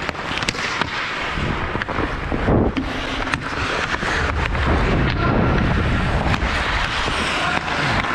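Ice hockey skate blades scraping and carving on the ice, with repeated sharp clicks of stick on puck and ice.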